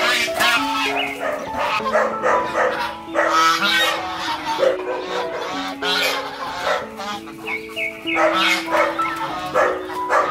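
Domestic geese honking again and again over background music with long held notes.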